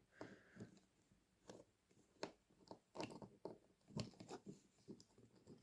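Faint, scattered clicks and taps of small parts being handled and pushed into place on a model locomotive bogie: its wheelsets, pickup contacts and coupling being refitted.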